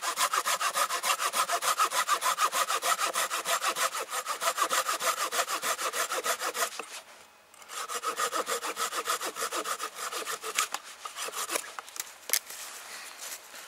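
Small Fiskars hand saw cutting through dry standing deadwood in fast, even strokes, about four a second. The sawing pauses briefly about seven seconds in, resumes, then stops, and a single sharp crack follows near the end.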